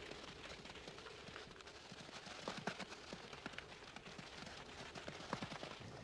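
Faint, scattered light clicks and taps of Arabian sand gazelle hooves on dry desert ground as a small herd moves about.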